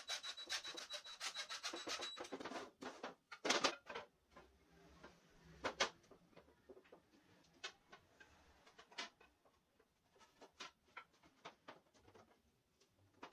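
A DeWalt cordless impact driver runs for about two seconds, hammering a screw into a wooden rack frame with a rapid clatter and a high whine. After that come wooden rack parts being handled on a table: a few sharp knocks, the loudest at about three and a half seconds, with softer taps and wood rubbing.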